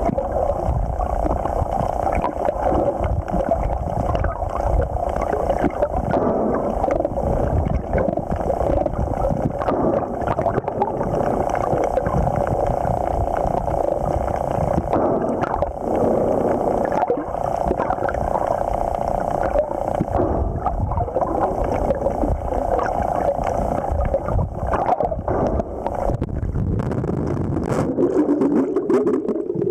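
Steady, muffled underwater rushing and gurgling of water, picked up by a camera submerged in the sea.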